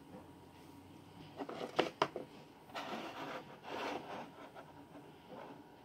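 Small toy props being handled on a wooden tabletop: a few sharp taps and clicks about a second and a half in, then two short bouts of scraping and rubbing as pieces are slid and pressed down.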